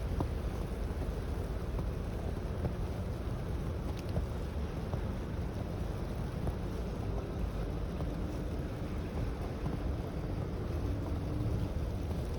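Steady low rumble of blizzard wind and city street noise, with a faint steady hum in the second half.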